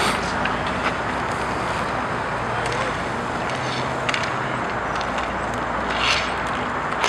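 Inline roller hockey play: skate wheels rolling and scraping on the rink surface, with a few sharp clicks of sticks striking the puck or each other over a steady background rumble.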